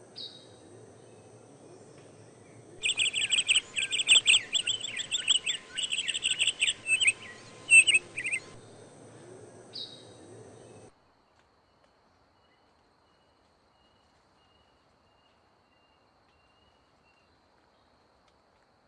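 A bird singing a rapid run of high chirping notes for about six seconds, with single short chirps before and after, over a faint steady background. The sound cuts off suddenly about eleven seconds in, leaving near silence.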